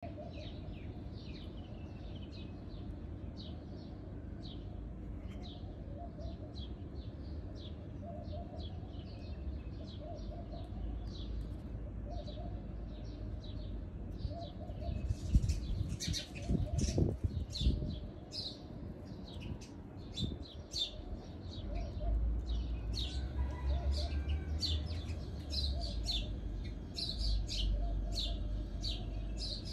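Bulbul singing: a run of short, quick chirping notes, coming thicker in the second half. A few louder low knocks and a rumble come about halfway through.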